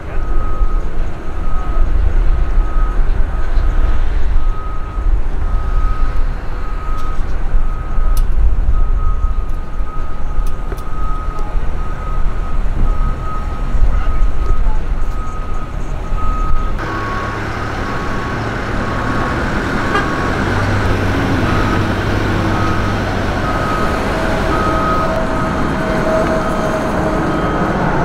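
Construction site and street traffic noise: a deep, uneven rumble with a vehicle's backup alarm beeping steadily, a little more than once a second. About two-thirds of the way through, the rumble gives way abruptly to a brighter, steady traffic hiss, with the beeping carrying on.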